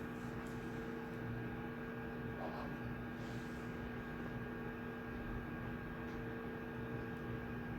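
Room tone of a quiet shared study room: a steady electrical hum over a soft even hiss, with a few faint brief rustles.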